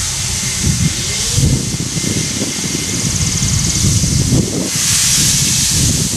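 Norfolk and Western 611 steam locomotive passing with a passenger train: a steady hiss of steam over a low, uneven rumble. The hiss gets louder near the end.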